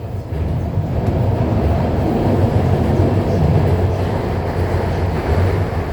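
Metro train running between stations, a steady low rumble of wheels on track heard from inside the carriage.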